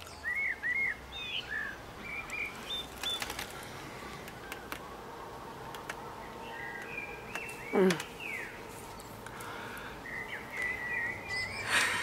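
Small birds chirping and tweeting in short separate calls over a faint steady outdoor background. About two-thirds of the way through there is one brief, louder squeal that falls sharply in pitch.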